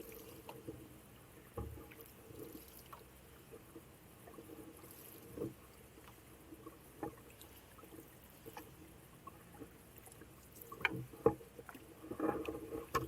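Sounds of paddling a canoe: quiet paddle strokes in the water with scattered knocks, becoming busier and louder in the last couple of seconds.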